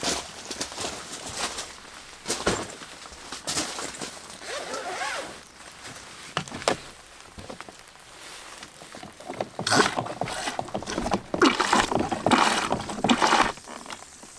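Footsteps and small clicks on gravel, then a portable camping toilet being flushed: water rushes into the bowl in several loud bursts over the last few seconds as the flush button is worked.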